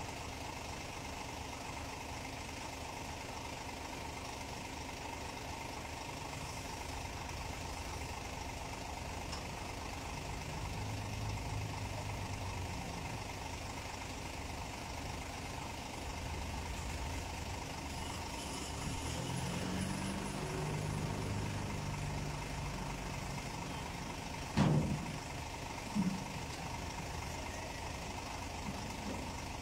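Heavy diesel engine running steadily, picking up revs for a few seconds twice. Near the end come two sharp metallic knocks about a second and a half apart, the first louder.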